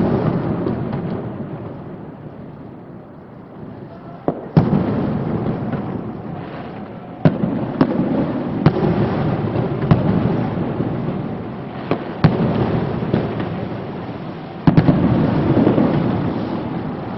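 Aerial firework shells bursting in a string of sharp bangs, one to three seconds apart and a few in close pairs, each trailing off in a long rolling echo.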